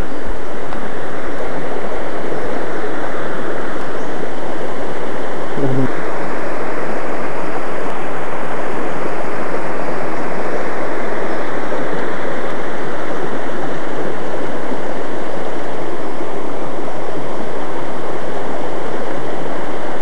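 Shallow rocky forest stream rushing over stones: a steady, loud rush of water.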